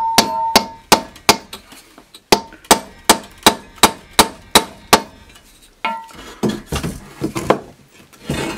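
Wooden mallet striking a wooden dowel used as a drift in the rusted cast-iron base of a drill press, trying to drive out the rust-seized column: a steady run of sharp blows about three a second for some five seconds, the first few with a metallic ring, then softer, quicker knocks near the end.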